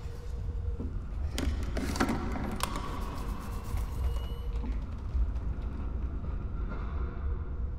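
A low steady hum with a few sharp clicks and creaks between about one and a half and three seconds in.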